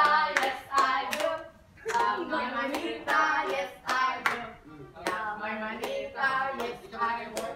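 A group of voices singing a gift-exchange chant together while clapping their hands, with claps cutting through the singing.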